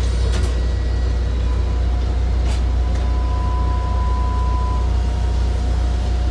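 MAZ-203 city bus riding, heard from inside the cabin: a steady low engine and road rumble, with a thin steady whine for a few seconds in the middle and a couple of faint rattles.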